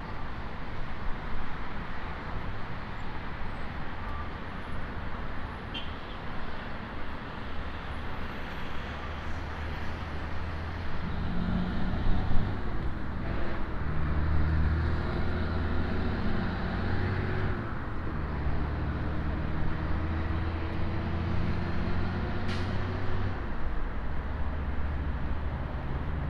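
Road traffic: a steady wash of passing cars. About halfway through, a nearby vehicle's engine joins in, humming low with a slowly rising tone.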